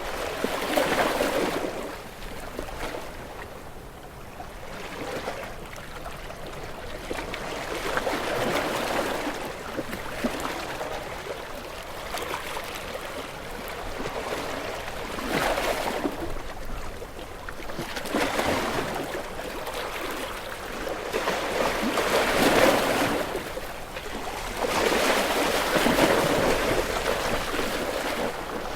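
Sea waves breaking against shore rocks and washing back, in repeated surges every several seconds. The loudest crash comes about three quarters of the way through.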